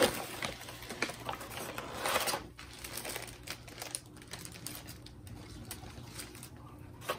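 Kraft paper bag and thin plastic plant sleeve rustling and crinkling as a potted plant is drawn out of the bag, loudest in the first two seconds or so, then dropping to faint scattered rustles.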